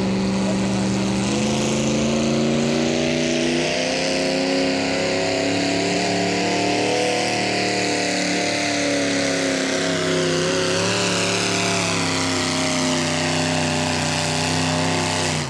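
Mini modified pulling tractor's engine revving under load as it drags a weight-transfer sled. The pitch rises in steps over the first few seconds, sags about ten seconds in, then climbs again before cutting off suddenly at the end.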